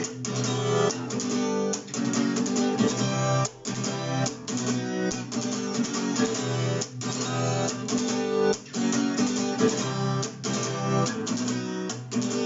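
Acoustic guitar strumming chords in a steady rhythm, with short regular breaks between strokes, as an instrumental close after the last sung line.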